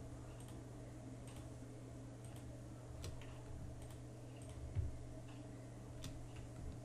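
Faint computer mouse clicks, about half a dozen spaced irregularly, over a steady low electrical hum, with one soft low thump about two-thirds through.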